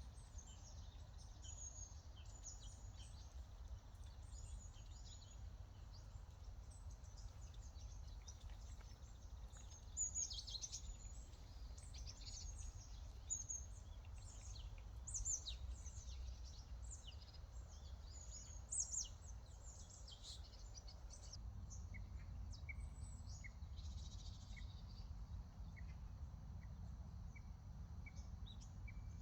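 Small songbirds chirping and twittering: many short, high, quickly falling calls, busiest in the middle, thinning out to a few brief thin notes later on. A steady low rumble runs underneath.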